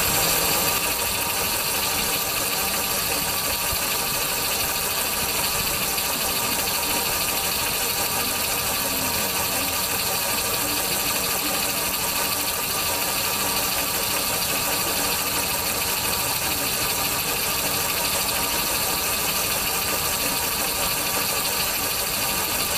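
The test buggy's engine running steadily, heard from on board, with a constant hiss and an unchanging pitch.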